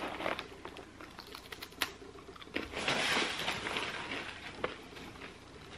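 Crunching and chewing of a crisp Flackers sea-salt flaxseed cracker: a string of dry crunches and clicks, with a sharper crack about two seconds in and a denser run of crunching around three seconds.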